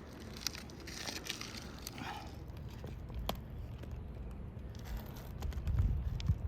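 Brittle asphalt roof shingles being handled and worked loose: faint crinkling and scattered light ticks over a low steady rumble that swells near the end.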